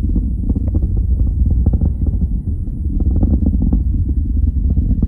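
Distant rocket launch: a continuous deep rumble from the rocket's engines, broken by irregular crackling.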